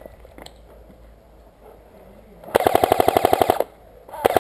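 Airsoft rifle firing on full auto: a burst of about a second, some fifteen shots a second, a little past halfway, and a second burst starting near the end.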